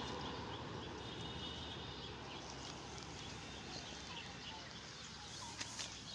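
Faint outdoor ambience: a steady low background hum with scattered small bird chirps.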